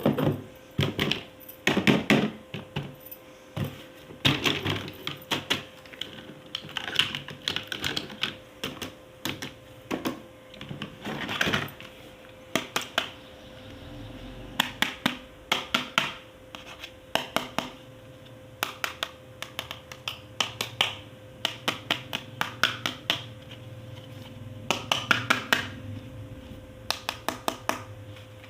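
Hands handling and unboxing toys and their packaging: quick clicks, taps and scratchy rustles in bursts, with short pauses, over a faint steady hum.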